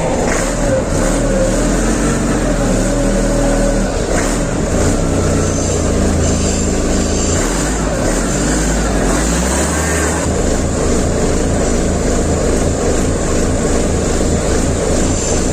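Rebuilt MAN truck diesel engine running just after its first start following the rebuild. Its note wanders up and down for the first ten seconds or so, then settles to a steady run.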